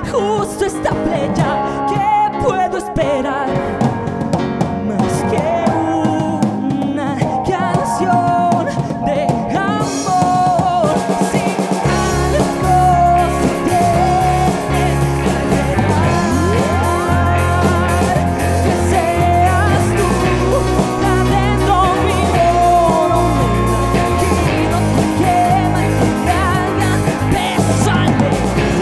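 A live rock band playing, with a lead vocalist singing over electric guitars and a drum kit. The low end fills out heavily about twelve seconds in, as the full band comes in.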